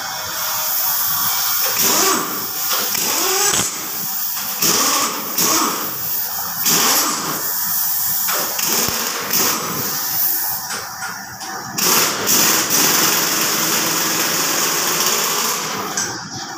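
Pneumatic impact wrench rattling in repeated bursts of a second or two, breaking loose and spinning out the cylinder head bolts on a Caterpillar C13 diesel engine.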